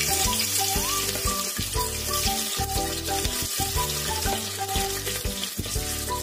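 Sliced onions sizzling steadily as they are tipped into hot mustard oil in an aluminium pressure cooker. Background music plays underneath.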